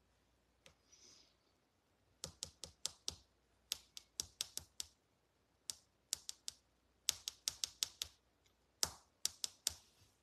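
Fingernails tapping on a phone's touchscreen: sharp clicks in quick, irregular runs of about four to eight taps, several a second, with short pauses between runs.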